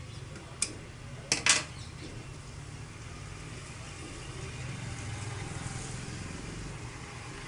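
Steady low mechanical hum from a jewellery bangle and tube forming machine. There is a sharp click about half a second in, and a louder cluster of clicks around a second and a half in, as a T-handle hex key is worked on the chuck and taken off.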